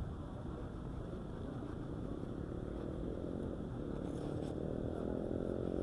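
Street traffic rumbling, with a vehicle's engine growing gradually louder from about halfway through as it approaches.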